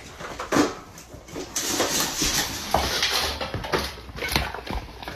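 Dogs eating from stainless steel food bowls: repeated irregular clinks and knocks of the metal bowls being pushed about, with a denser stretch of eating noise in the middle.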